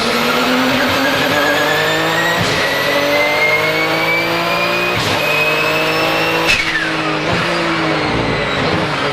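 Porsche 997 GT2 RSR's twin-turbo 3.9-litre flat-six under full throttle, heard from inside the cabin. It revs up through two quick upshifts, about two and a half and five seconds in, with a turbo whistle rising alongside. Near six and a half seconds the driver lifts off and the engine and whistle pitch fall away.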